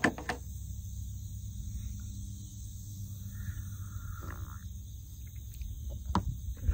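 Steady drone of insects over a low rumble, with a couple of sharp clicks right at the start and another near the end. About three and a half seconds in comes a short slurp as hot coffee is sipped from a thermos cup.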